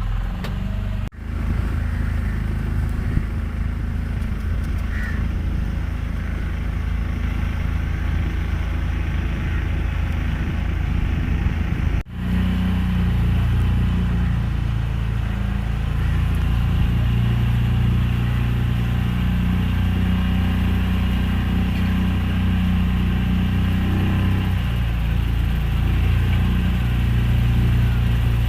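Motorboat engine running steadily under way: a continuous low hum, with two very brief dropouts, about a second in and about twelve seconds in.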